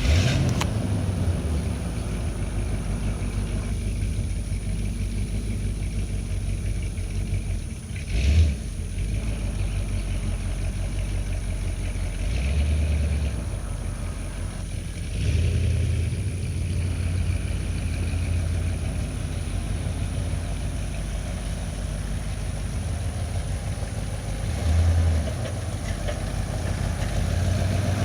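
A vehicle engine running steadily, with several brief swells in level, as if briefly throttled up.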